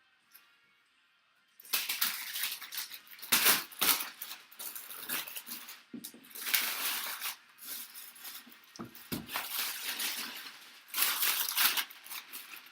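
Plastic shrink wrap being torn and crumpled off a box, in bursts of crinkling with a few sharp clicks, starting a second or two in.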